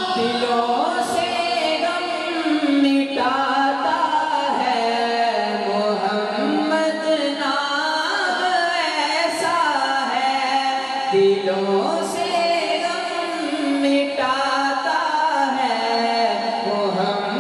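A man singing a naat, a devotional Urdu/Punjabi song in praise of the Prophet Muhammad, solo into a microphone, in long melodic phrases.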